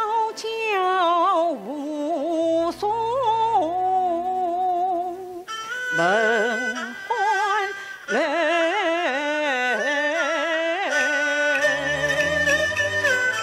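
Yue opera music: a high-pitched sung melody with wide vibrato and gliding notes over traditional Chinese instrumental accompaniment with a low bass line.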